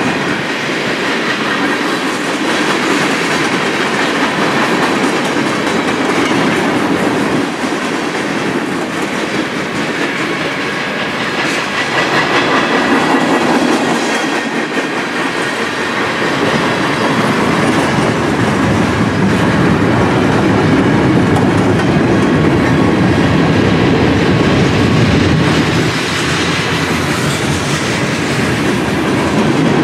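Freight cars of a BNSF train rolling past at close range, steel wheels clicking over the rail joints in a steady run. The rumble gets deeper and heavier about halfway through.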